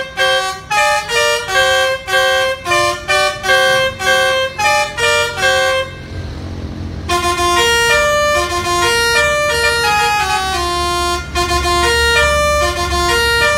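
A musical horn on a Fuso truck playing a melody of steady horn notes that step up and down in pitch, short notes at about two a second at first, then after a brief pause longer held notes. A low engine rumble is heard under the horn and in the pause.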